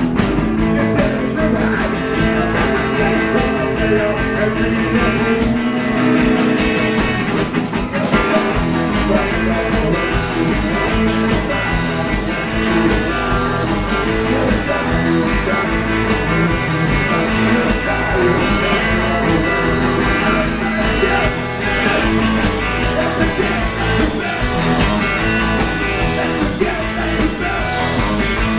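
Live rock-and-roll band playing: two electric guitars over a drum kit, with singing.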